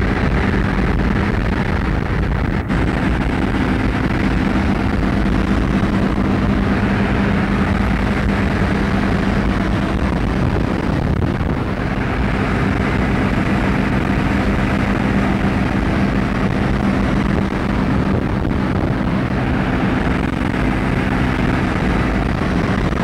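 Propeller aircraft engine droning steadily in flight, with a constant low hum under loud rushing wind, recorded aboard an aircraft.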